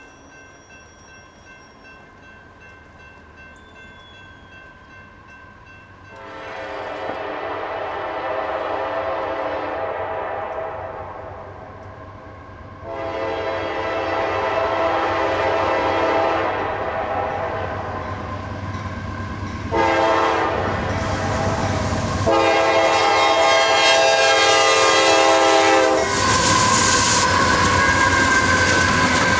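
CSX GE CW44AC locomotive horn sounding a series of long blasts for the grade crossing, each louder than the last as the loaded coal train closes in, over the steady ringing of the crossing bells. Near the end the locomotive passes close with a loud rush of engine and wheel noise.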